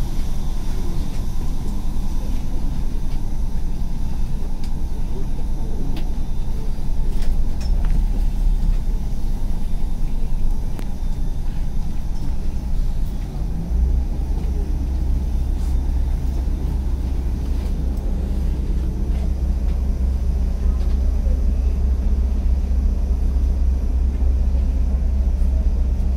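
Steady low rumble of a Boeing 787-9 airliner cabin on the ground, with engines and air systems running, heard from a window seat. The low rumble grows heavier about halfway through.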